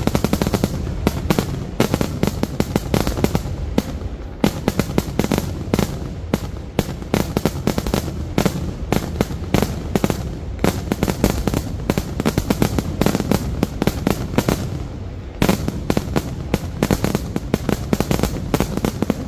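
Festival fireworks barrage: a dense, continuous run of sharp bangs and cracks, many a second, easing briefly about fifteen seconds in before picking up again.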